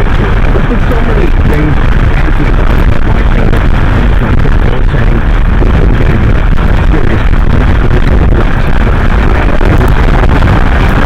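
Steady, loud cabin noise of an Infiniti G37 cruising at highway speed: tyre, wind and engine rumble mixed together, with no clear break or change.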